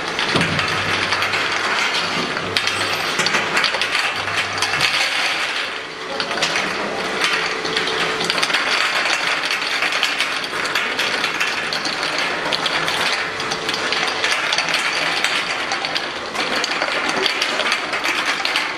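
Automatic plastic bottle unscrambler running: small empty plastic e-liquid bottles clatter and click continuously against the rotating notched turntable and the stainless steel hopper as they are sorted, over a faint steady machine hum.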